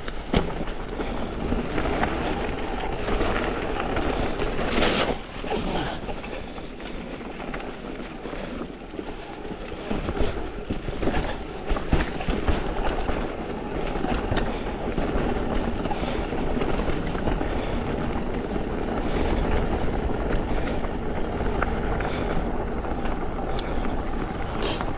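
Mountain bike riding along a rocky dirt trail: steady tyre and wind rush over a body-mounted GoPro microphone, broken by frequent clicks and knocks from the bike rattling over stones and roots.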